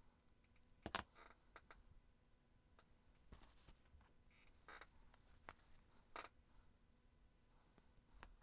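Near silence with a few faint clicks and taps of craft supplies being handled and set down on a cutting mat. The sharpest click comes about a second in.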